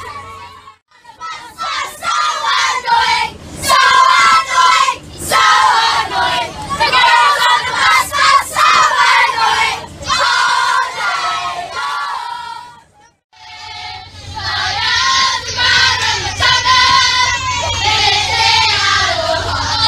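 A group of children singing a Māori kapa haka song together inside a moving bus, with the bus engine humming underneath. The singing breaks off briefly about 13 seconds in, then comes back louder and fuller, with shouted chanting.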